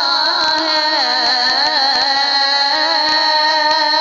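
A voice singing a naat, drawing out a wavering, ornamented melody on a held vowel that settles into a long steady note in the second half.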